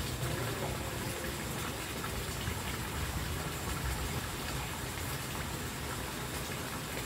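Steady rushing, splashing noise of running water, with a few faint scattered ticks.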